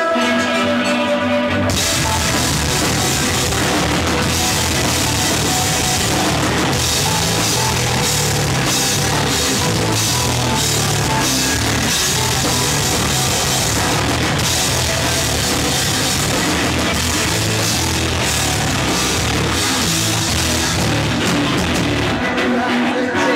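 Heavy rock band playing live: a melodic passage with held notes, then about two seconds in the full band crashes in with heavy drums, cymbals and distorted guitar and bass, easing back to the melodic part near the end.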